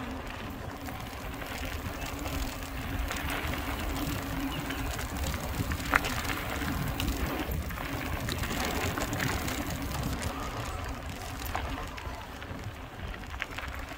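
Mountain bike rolling down a dirt and gravel trail: knobby tyres crunching over the surface over a steady low rumble, with one sharp knock about six seconds in.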